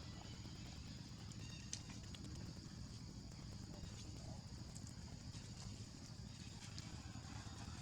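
Faint, steady background noise with a low rumble and a high hiss, broken by a few light clicks, the sharpest about two seconds in.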